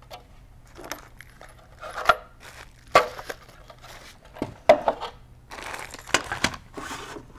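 Handling noises from a hard ABS plastic electrical-style rough-in box being turned over and set down on a wooden counter: scattered light knocks and clicks, with paper rustling as the instruction booklet is picked up about six seconds in.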